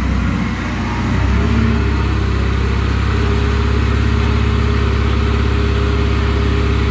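Engine on a homemade remote-controlled mini-crane running steadily while the crane turns its suspended load, getting louder about a second in.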